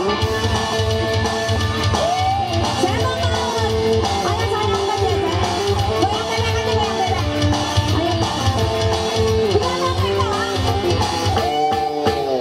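Live dangdut band music: a melody line that bends and slides in pitch over a steady, pulsing drum beat.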